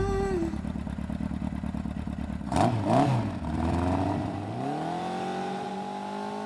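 Motorcycle engine running with a rapid steady pulse, revved twice in quick succession about two and a half seconds in, then rising in pitch and holding steady as it pulls away.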